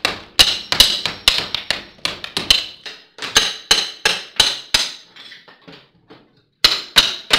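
Hammer blows in quick succession, about three a second, each sharp with a ringing edge, while an old tile fireplace surround and mantel are being broken out. Lighter taps follow, then two more hard strikes near the end.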